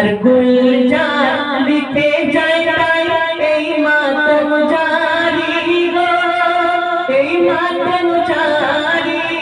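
A man singing a Bengali gojol (Islamic devotional song) into a microphone, drawing out long, ornamented held notes that bend and glide in pitch.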